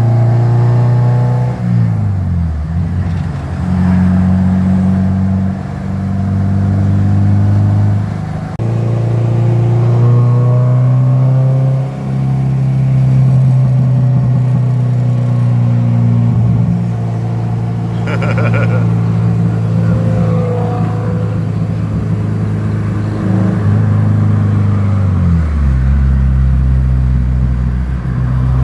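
Honda B18C1 1.8-litre four-cylinder engine in a Civic, heard from inside the cabin while driving: the engine note rises and falls as it is run through the gears, then drops to a low steady note near the end.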